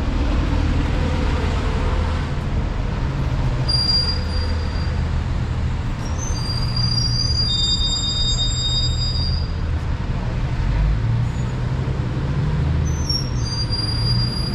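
Street traffic dominated by the steady low hum of a large vehicle engine running close by. Thin, high whistling tones come and go over it.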